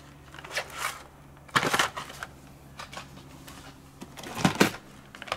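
Hot Wheels cars in plastic blister packs on cardboard cards being handled: scattered clacks and crinkles of the packaging, loudest about one and a half seconds in, with two sharp clacks near the end.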